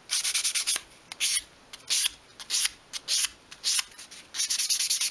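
Hand sanding with fine-grade sandpaper: quick, short scraping strokes swept over the edge of a small piece of obeche wood, with brief pauses between them, smoothing off a rounded edge.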